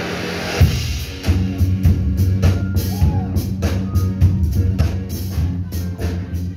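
Live indie rock band with drum kit, electric guitars and synthesizers playing. A held swell breaks into a loud hit about half a second in, and just over a second in a steady drum beat starts over a low, repeating bass line.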